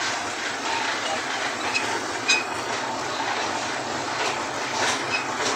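Steady outdoor background noise with a few short metallic clinks, one about two seconds in and more near the end.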